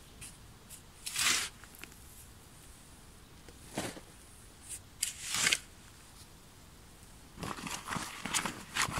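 Shovel scraping into dry sandy soil and tossing it, three scoops about 1, 4 and 5 seconds in. Near the end, a run of rustling and crinkling as a sack is handled.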